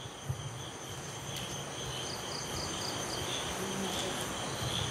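Faint high-pitched insect chirping, pulsing a few times a second, over a low steady hum. There is a single small tap about a third of a second in.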